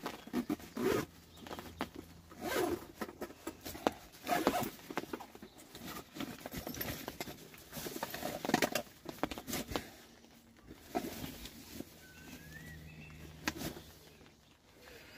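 Rustling and scuffing of a padded jacket moving close to the microphone, with irregular small clicks and taps of handling. A single short bird chirp about twelve seconds in.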